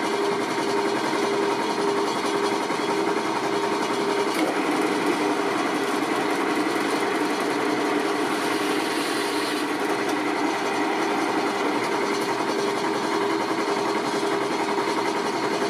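Electric drill press running steadily, a constant machine hum with a few fixed tones. A higher hiss joins briefly about eight seconds in, then falls away.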